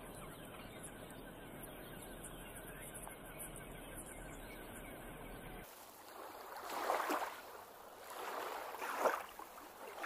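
Water at a lakeshore: a steady wash of small waves, then, after a cut, three surges of water swelling and falling back, a second or two apart.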